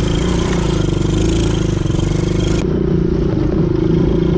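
Quad bike (ATV) engine running steadily under way, with a rattle of the machine over rough ground. About two and a half seconds in, the high hiss drops off suddenly while the engine goes on.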